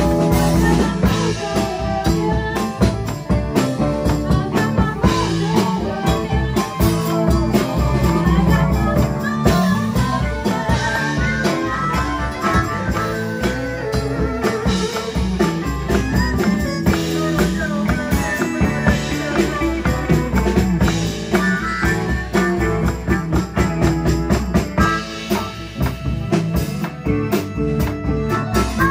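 A live blues-rock band playing, with a drum kit and guitar.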